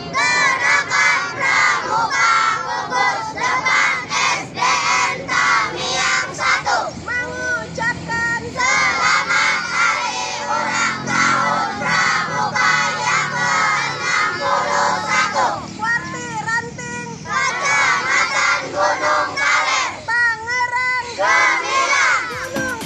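Group of schoolchildren chanting and singing together in unison.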